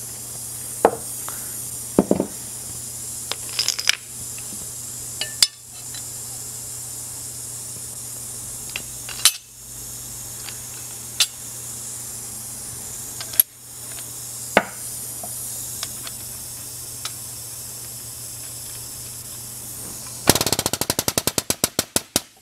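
Steel dies and punch parts clinking as they are handled and fitted together, then, near the end, an air-over-hydraulic pump driving a knockout-punch ram, a rapid even chatter that fades over about two seconds as it presses a dimple die to flatten a flared hole in 1/8 inch steel plate.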